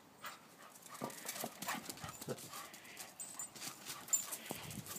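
Small dogs playing, moving about with quick, irregular scuffles and taps and short breathy sounds.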